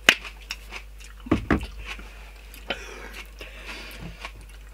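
Raw red onion being bitten and chewed with the mouth close to the microphone: irregular crisp crunches, the sharpest right at the start and another cluster about a second and a half in.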